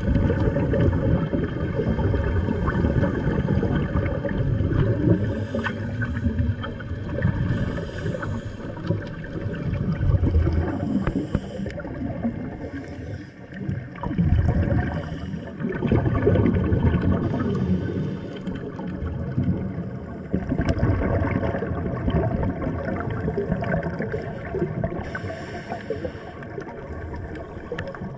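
Scuba divers' exhaled bubbles gurgling and rumbling, heard underwater as a muffled, uneven rumble with repeated surges.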